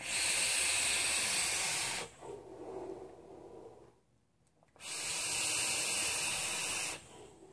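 Sub-ohm Tidal wire coil (about 0.11 ohm) in a CLT3 tank firing at 72 watts while air is drawn through it: two loud, steady hissing draws of about two seconds each. Between them comes a softer breathy exhale of vapour.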